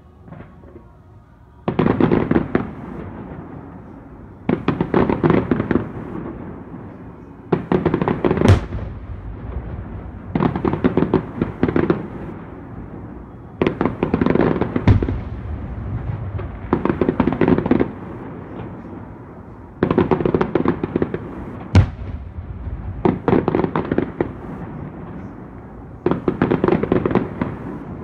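Aerial firework shells bursting in volleys about every three seconds, each a quick cluster of bangs fading into a rumbling tail, with a few sharper single bangs among them.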